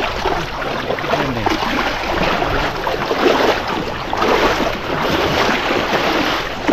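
Steady rush and slosh of water around a small outrigger boat moving through a shallow, muddy channel.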